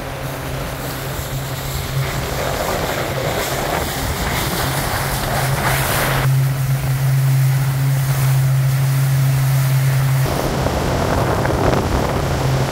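Engine of a small Olimpic 500 CC motorboat running steadily under way, a steady hum over the rush of water and wind against the hull. The engine hum is louder for about four seconds midway, then eases back.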